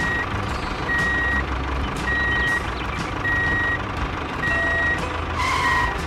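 Vehicle reversing alarm beeping at an even pace, one beep about every 1.2 seconds, over a low engine rumble.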